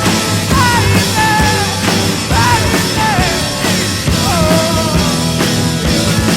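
Rock music with a steady drum beat and a lead melody sliding up and down in pitch.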